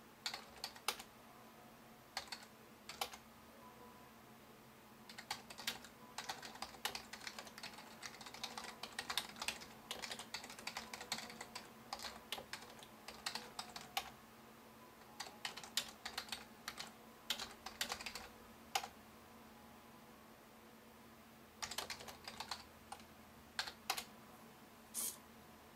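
Computer keyboard being typed on: irregular runs of keystroke clicks, with a couple of short pauses. A faint steady hum runs underneath.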